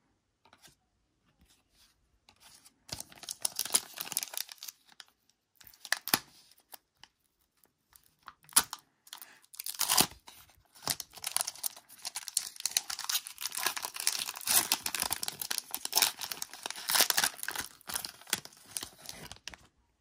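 Foil trading-card pack being torn open and crinkled, in several short bursts of tearing and crackling that become a long dense stretch in the second half.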